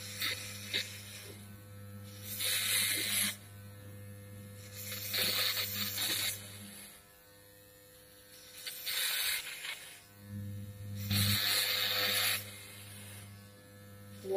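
Corded electric hair clippers buzzing with a steady low hum. Four times, each for about a second, the sound grows louder and hissier as the blades cut through hair.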